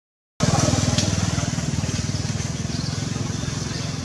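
An engine running steadily, a low rumble of rapid even pulses, cutting in after a brief dropout in the sound at the very start.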